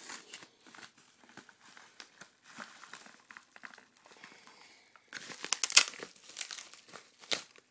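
A mailing package being handled and emptied by hand: irregular crinkling and rustling of the packaging, fainter at first and louder from about five seconds in.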